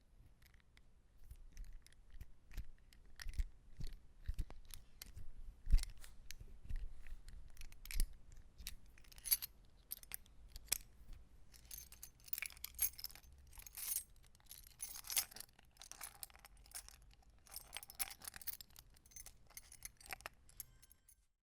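A bunch of metal keys being handled: scattered single clinks and small jingles, then denser bursts of jangling in the second half, stopping suddenly just before the end.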